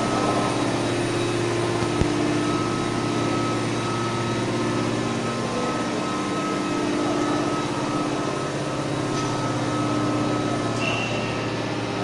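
Steady hum of industrial machinery on an aluminum bar induction heating and forging line, with a thin high tone held over a lower drone. A single sharp click about two seconds in.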